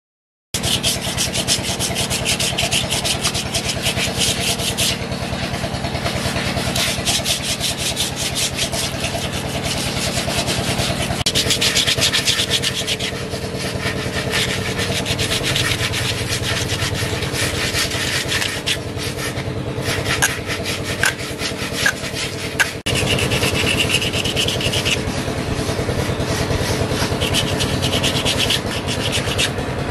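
Sandpaper rubbed rapidly back and forth over carved wood: hand sanding, a continuous scratchy rasp that swells and eases with the strokes. A steady low hum runs underneath.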